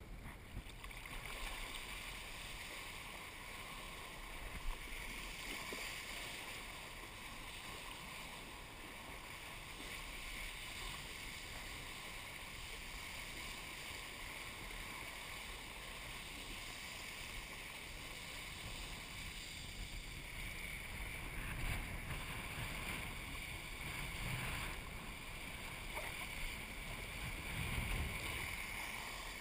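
Kiteboard riding across shallow water, heard through the camera housing as a steady hiss of water and spray. Several low thumps come near the end as the board hits chop in the open lagoon.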